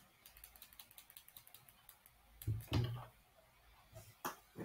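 Faint, rapid clicking, about nine small clicks a second for nearly two seconds, like keys or buttons being pressed. Then two louder thuds, one near the middle and one near the end.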